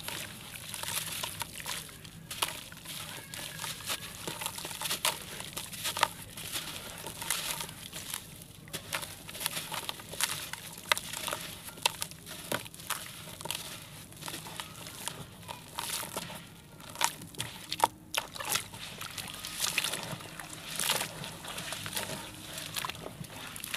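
Sand-cement chunks being crumbled and crushed by hand in a basin of water: sloshing and dripping water mixed with many small, sharp crunching crackles.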